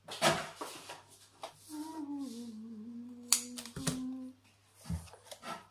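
A woman humming one long note that slides slowly downward for about two and a half seconds, with a sharp click partway through and a few short handling noises around it.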